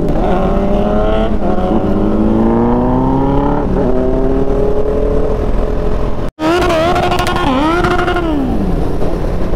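Motorcycle engine from the rider's seat, its pitch climbing as it accelerates and dipping briefly between rises, over steady wind rush. The sound cuts out for an instant about six seconds in, then the engine note rises and falls again.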